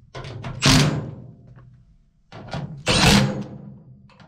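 Cordless impact driver running in two short bursts, about a second in and again near three seconds, tightening bolts through a socket extension into a steel tool chest.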